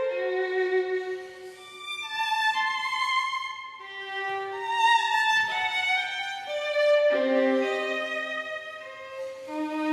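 Background music: a slow melody on a bowed string instrument, one held note after another.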